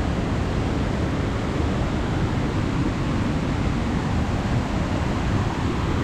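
Waterfall water rushing down over rock slabs: a steady, unbroken rushing noise.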